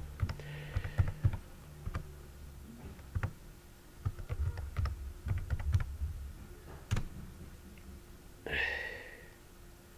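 Typing on a computer keyboard: irregular key clicks, some sharper than others, over a faint steady hum. Near the end comes a short sound with a falling pitch.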